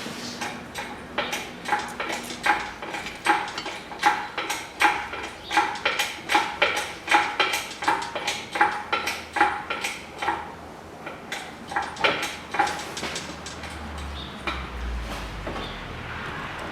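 Metal clinking from the engine hoist's lifting gear as a diesel engine is raised out of the engine bay: a run of sharp ringing clinks, two or three a second, for about twelve seconds. A low rumble follows near the end.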